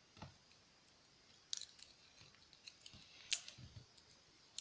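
Small metal hand tools clicking against tiny wristwatch parts during disassembly. There is a soft knock just after the start, then a few sharp, scattered clicks; the sharpest comes a little past three seconds in.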